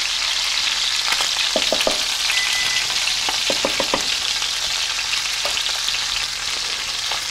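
Chicken pieces browning in hot oil in a frying pan, sizzling steadily. A few brief clicks come twice, about one and a half and three and a half seconds in.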